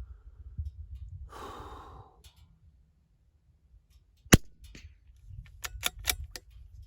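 A breath, then a single sharp shot from a Ruger Precision Rimfire .22LR bolt-action rifle a little past the middle, followed by a quick series of metallic clicks as the bolt is worked to chamber the next round.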